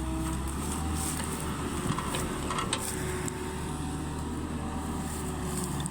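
Heavy construction machine's diesel engine running steadily, a low even hum with a few faint clicks.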